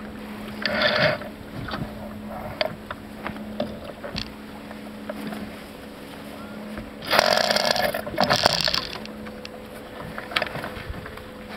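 Sailing sounds aboard a Farr 30 racing keelboat running downwind: water and wind noise with scattered clicks and knocks from lines and deck fittings. A loud rush of noise lasts about a second and a half past the middle, with a shorter one about a second in.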